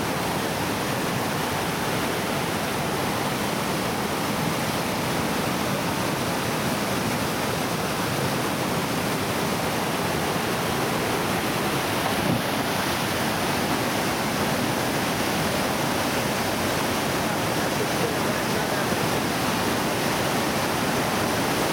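Whitewater of Oceana, a steep bedrock slide rapid on the Tallulah River, rushing steadily.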